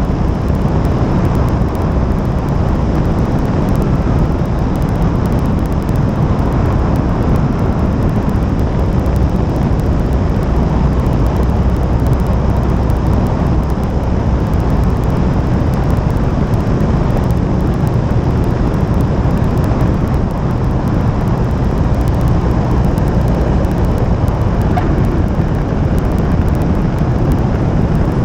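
Cessna 152's Lycoming O-235 four-cylinder engine and propeller running steadily at low taxi power, with a deep rumble, heard through a camera mounted outside the cabin.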